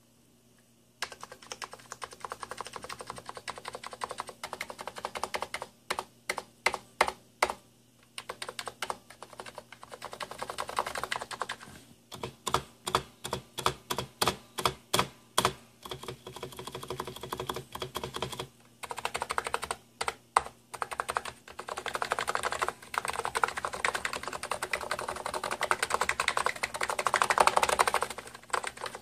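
Typing on a Hansung electro-capacitive (non-contact) keyboard: the typing starts about a second in with runs of fast keystrokes, broken twice by single keys pressed one at a time at about four a second. The keystrokes carry the grating noise that the owner complains of.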